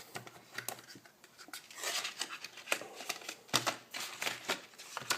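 Scattered small clicks, taps and rustles of computer memory modules and plastic being handled by hand.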